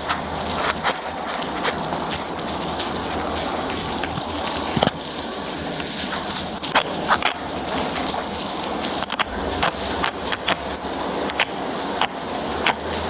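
Steady outdoor background noise on a body-worn camera microphone, with frequent small clicks and crackles of the camera rubbing and being handled, over a low steady hum.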